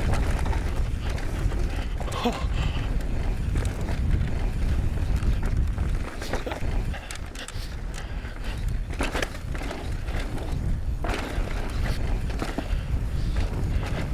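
Mountain bike riding down a rough trail: tyres rolling over rock and dirt, with scattered sharp clacks and knocks from the bike over bumps. A steady wind rumble lies on the microphone throughout.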